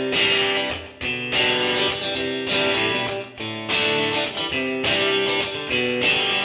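Background music led by guitar, with chords that change every second or so.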